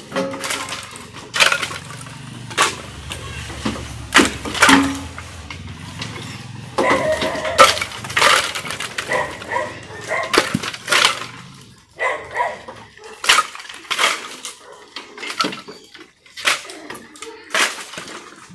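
Firewood sticks knocking and clattering as they are thrown one after another from a truck bed onto a woodpile, in many separate irregular wooden knocks.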